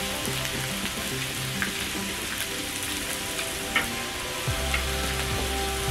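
Pork belly and brisket sizzling on a hot tabletop grill pan: a steady frying hiss, with a few light clicks of chopsticks against the meat and pan.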